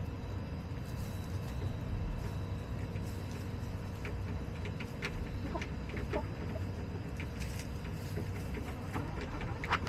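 Chickens scratching and pecking in dry wood-chip litter: scattered soft taps and rustles, more of them about halfway through and just before the end, over a steady low rumble and a faint steady hum.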